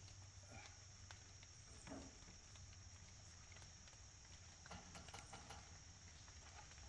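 Near silence: faint woodland ambience with a steady high-pitched insect drone and a few scattered faint taps.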